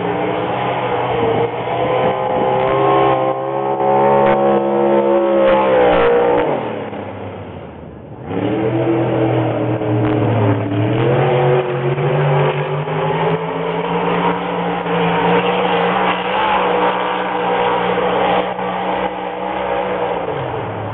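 A race car's engine lapping a dirt oval: its note climbs steadily, drops away as the car eases off about seven seconds in, then comes back up and holds high before easing again near the end.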